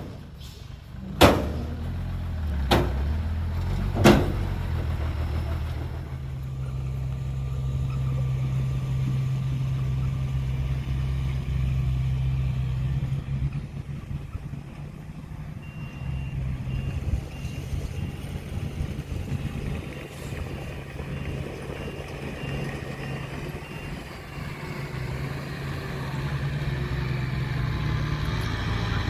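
Heavy diesel engine of a construction machine running steadily, with three sharp knocks in the first four seconds.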